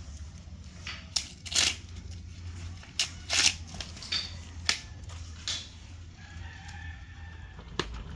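Fresh corn being husked by hand: short dry tearing and rustling rips as the outer husks are pulled off the ears, several times over. A rooster crows faintly in the background about six seconds in.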